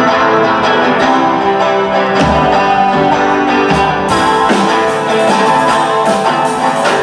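Live indie pop band playing without vocals: electric guitars ring out sustained chords over bass, with drum and cymbal hits that come a few times.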